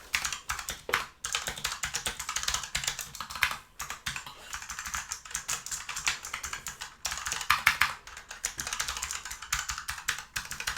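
Fast typing on a Razer Huntsman gaming keyboard: a rapid, continuous stream of key clicks with a few short pauses.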